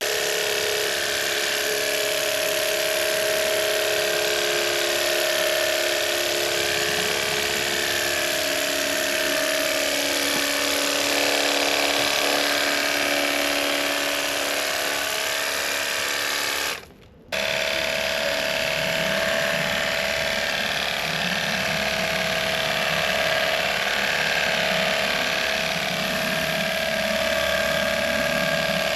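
Pressure washer running: a steady motor-and-pump drone with a hiss of water spray, washing down a bicycle. It cuts out briefly about 17 seconds in, then runs on.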